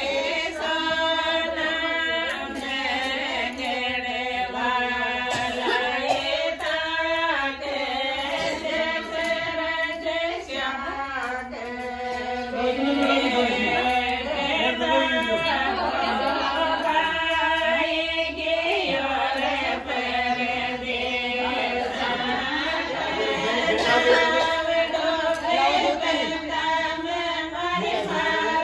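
A group of women singing together without instruments, long held notes running one into the next.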